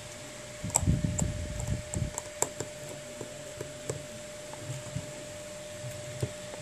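A precision screwdriver clicking and tapping against tiny screws and the metal connector cover inside an iPhone 6 Plus as the screws are driven in. The clicks come in a quick run with low handling rumble during the first couple of seconds, then thin out to an occasional tick, over a faint steady whine.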